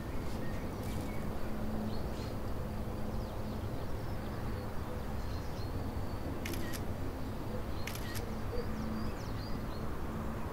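Outdoor woodland ambience with a steady low rumble and faint high chirps, broken by two short camera-shutter-like clicks about a second and a half apart, a little past the middle.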